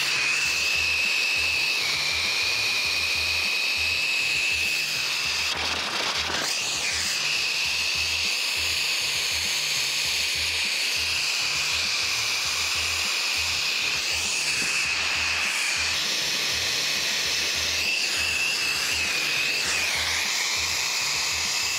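TurboTorch soldering torch burning steadily on a copper pipe coupling: a continuous hiss with a high whistle, as the joint is heated to draw in solder. Background music runs underneath.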